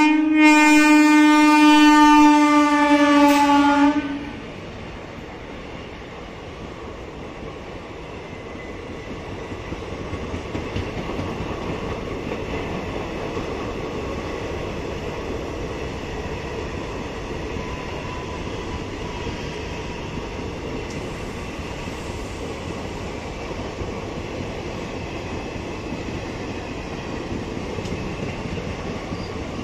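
Indian Railways electric locomotive sounding one long horn blast of about four seconds. Then the coaches of the passenger express roll slowly past, a steady rumble and clatter of wheels on rail that grows a little louder and holds.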